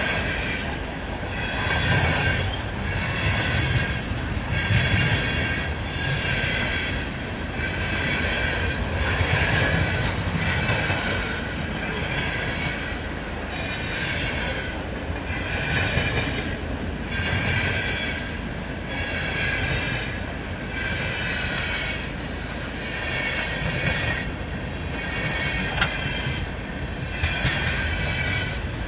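Freight train cars rolling past, a steady low rumble with a high metallic wheel squeal that swells and fades about once a second as the cars go by.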